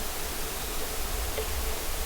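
Steady hiss with an unsteady low rumble underneath and a faint steady hum, with no distinct event.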